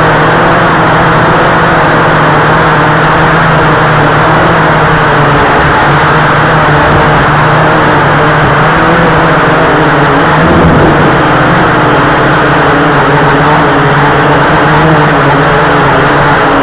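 Blade 350QX2 quadcopter's electric motors and propellers running in flight, a loud steady hum with rushing noise, heard through the camera mounted on the drone itself.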